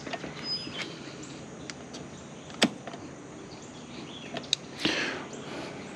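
Electric bike rolling slowly over a dirt campsite drive: a low steady rolling noise with a few sharp clicks and rattles, the loudest about two and a half seconds in.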